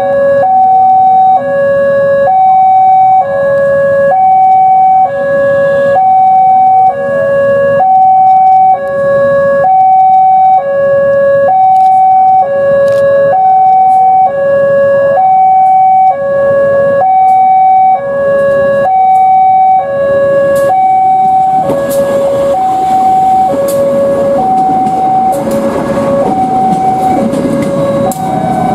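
Railway level-crossing warning alarm sounding a two-tone ding-dong, a high and a low tone alternating at about one pair every two seconds: the crossing is closed for an approaching train. From about two-thirds of the way through, the rumble of a diesel railcar set passing over the crossing rises beneath it.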